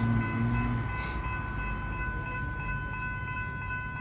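General Signal Type 3 electronic level crossing bells ringing steadily, warning that the crossing is active and a train is approaching.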